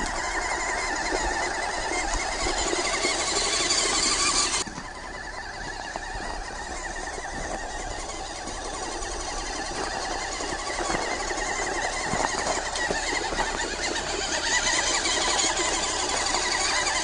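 Small electric RC car, a JY66 1/14-scale Jeep with a 260 brushed motor, whining steadily through its gearbox as it drives over dirt and pine needles. The whine drops sharply in level about four and a half seconds in, then builds again.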